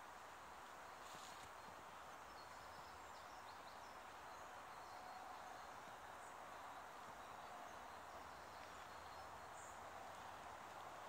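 Near silence: quiet forest ambience, a steady faint hiss with a few faint, short high chirps scattered through it.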